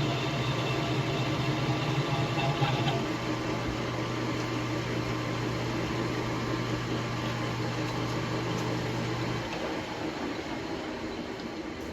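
Metal lathe turning a stainless steel shaft under power feed: a steady motor hum with a bright cutting noise for about three seconds, then the cut stops and the lathe runs on with only the hum. About nine and a half seconds in the hum drops away and the sound fades as the lathe winds down.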